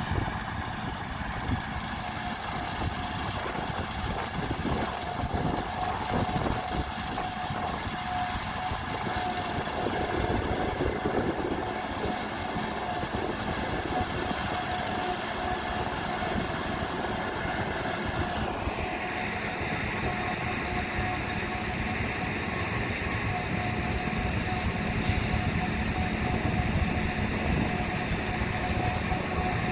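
Large harvest machinery running steadily, with a constant hum-like tone throughout. About 18 s in, a higher whine drops in pitch and the machine noise turns brighter.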